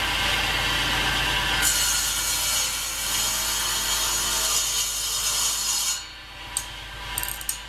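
Power saw running and cutting maple, a steady machine noise with a bright hiss. About six seconds in the cut ends and the sound drops away, with a few sharp clicks.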